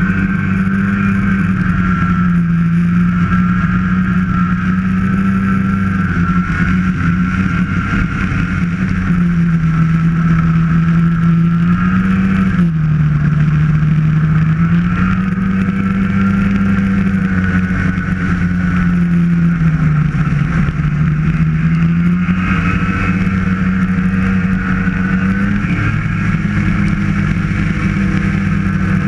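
Snowmobile engine running steadily at trail speed, its pitch dipping three times as the throttle eases and climbing back each time.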